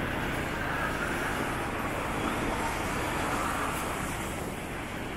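Steady city street traffic noise, a dense rumble of passing vehicles, easing slightly near the end.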